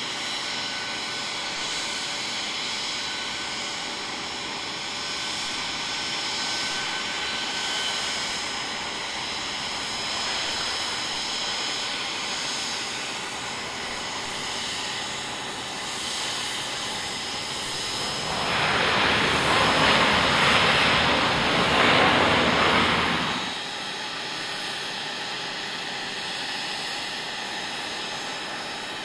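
A C-17 Globemaster III's four turbofan engines whine steadily on landing and taxiing. For about five seconds, a little past halfway, they grow much louder with a broad rush of noise, then drop back to the steady whine.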